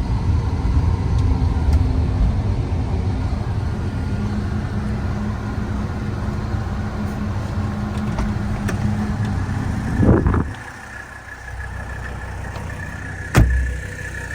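Inside the cabin of a 1983 Mercedes-Benz 300CD, its 3.0-litre turbodiesel inline-five and the road make a steady low running noise while it is driven. About ten seconds in the noise drops away to a quieter low hum. A single sharp thump comes near the end.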